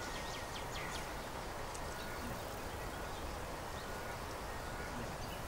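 Steady outdoor background ambience with a few faint, short bird chirps in the first two seconds.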